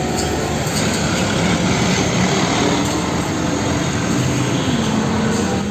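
Loud, steady whirring hiss with a low motor hum underneath, starting and stopping abruptly.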